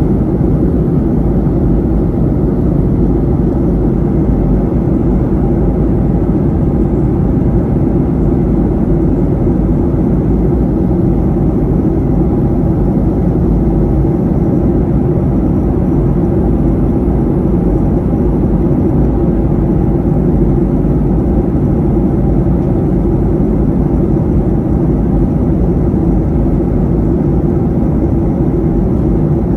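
Steady, low cabin noise of a jet airliner in flight, the even rush of engines and airflow heard inside the cabin.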